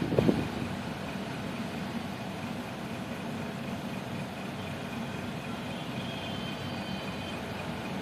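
Steady mechanical hum with a faint high steady whine over it, with a few brief knocks right at the start.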